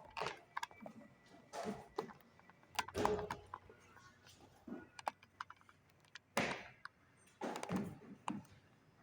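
Irregular thuds and knocks of workout equipment and landings, a few a second apart, the heaviest and deepest about three seconds in, with longer noisy bursts later on.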